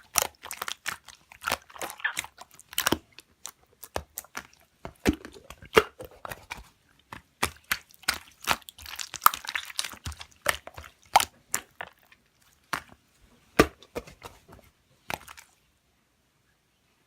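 Slime being squished and pressed by hand, making a fast, irregular run of sharp clicks and crackles that stops about 15 seconds in.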